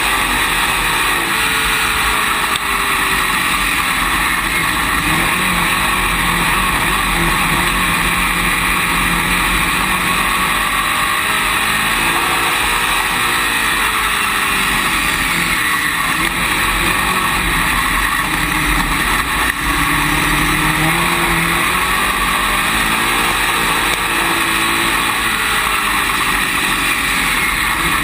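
Dirt late model race car's V8 engine heard from inside the cockpit at racing speed, its revs rising and falling repeatedly as it laps the oval, over a loud steady rushing noise.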